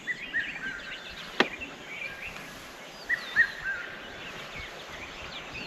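Several birds singing and chirping, one of them repeating the same short three-note phrase twice. A single sharp click about a second and a half in.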